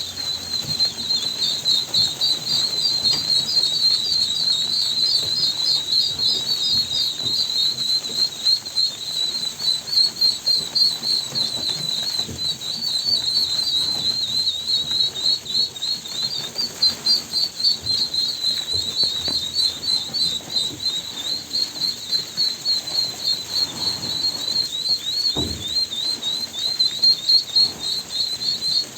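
Ducklings peeping in a steady chorus: many short, high peeps overlapping without a break.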